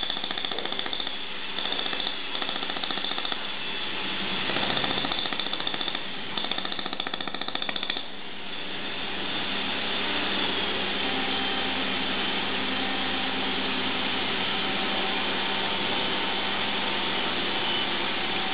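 Handheld fiber laser welder welding stainless steel, a rapid pulsing buzz that stops about eight seconds in. A steady machine hiss and hum carries on after it.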